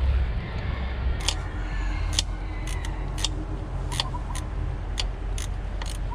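Ratchet wrench tightening the 12mm nut on the starter's main cable terminal: about ten sharp metallic clicks at uneven spacing over a steady low hum.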